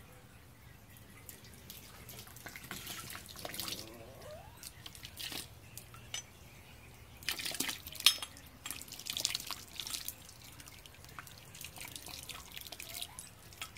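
Sparge water and wort trickling and dripping during manual continuous (fly) sparging of an all-grain mash, with irregular splashes and one sharp knock about eight seconds in.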